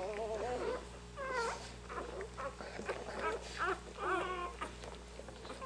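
Newborn German Shorthaired Pointer puppies squeaking and whimpering as they nurse: a run of short, high, wavering cries, over a low steady hum.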